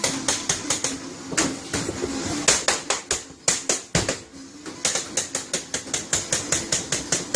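Rapid, even, sharp knocks, about five or six a second, with short breaks about two and four seconds in: fast, machine-like hand work with a tool striking a hard surface.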